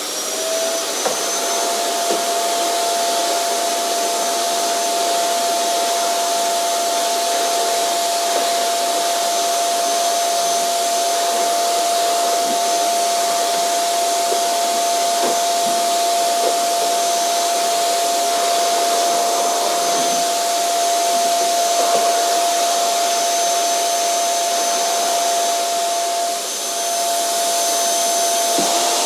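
Vacuum cleaner motor finishing its spin-up in the first second after being switched on, then running steadily. A constant high whine sits over a loud rush of air.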